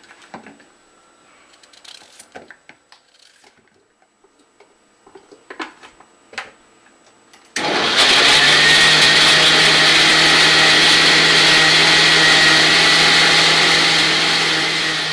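Countertop blender starting up about halfway in and running steadily at full power, grinding pieces of dry coconut with water to make coconut milk. Before it starts there are only a few soft clicks and knocks of the coconut pieces being handled.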